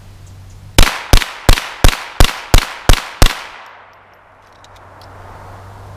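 Ruger Mark III .22 Long Rifle semi-automatic pistol firing eight shots in quick succession, about three a second, followed by a fading echo.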